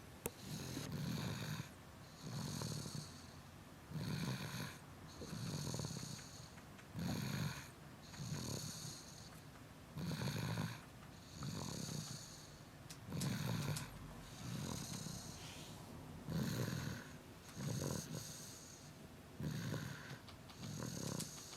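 A two-year-old girl snoring loudly in her sleep, a rasping snore on each breath, coming about every one and a half seconds in an even rhythm.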